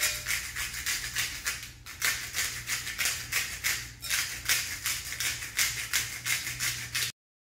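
Hand salt grinder being twisted over a bowl, grinding salt in quick even turns, about five rasps a second, with two brief pauses; the sound cuts off suddenly near the end.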